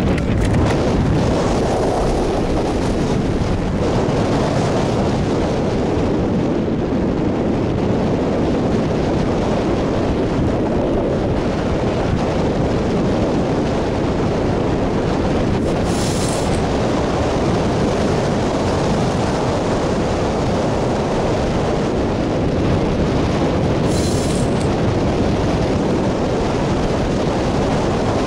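Steady, loud wind rush on a wing-mounted camera's microphone from the airflow of a tandem hang glider in flight, just after launch.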